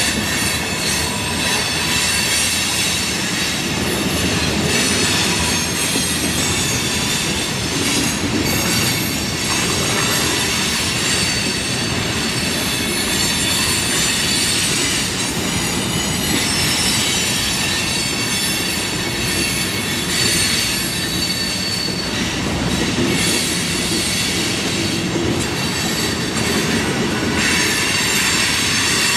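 Freight cars of a manifest train rolling past on steel rails: a steady rumble and clatter of wheels, with high-pitched wheel squeal ringing over it the whole time.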